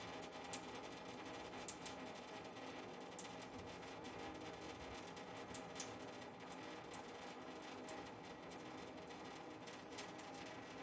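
Thin stream of tap water trickling into a stainless steel sink: a faint steady splash with scattered small sharp clicks.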